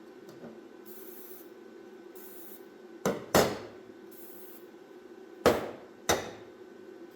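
Hammer strikes on metal: four sharp, ringing knocks in two pairs, about three and about five and a half seconds in, with short bursts of high hiss between them.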